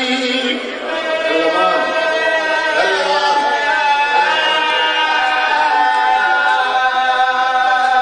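A man chanting into a microphone in long, held melodic lines with wavering pitch: a zakir's sung recitation in Punjabi.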